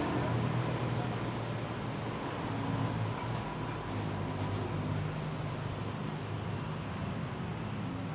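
Steady low rumble of street traffic, with engines running nearby.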